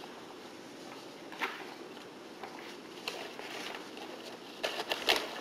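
Quiet room tone with a couple of isolated soft clicks, then a quick run of sharp clicks and taps near the end.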